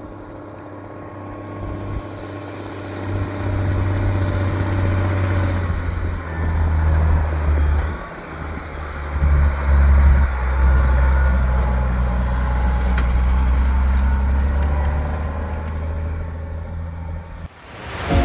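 Heavy farm-vehicle engine running, its loudness rising and falling with load; it cuts off abruptly near the end.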